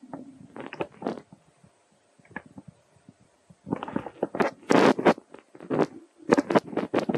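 Baby macaque eating soft fruit: irregular wet smacking, crackling and tearing as it pulls the fruit apart and chews, with a louder flurry about four to five seconds in.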